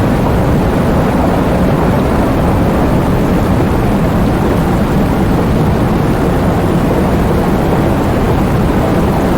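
Heavy rain falling as a steady, dense roar weighted toward the low end, with no separate claps or drops standing out.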